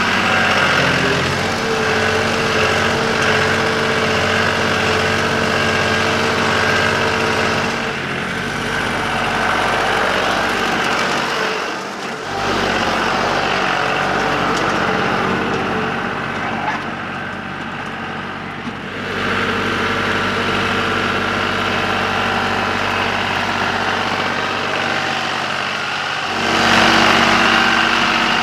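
John Deere compact diesel tractor engine running steadily under a front loader carrying a round hay bale. Its note and level shift abruptly several times, and it is loudest near the end.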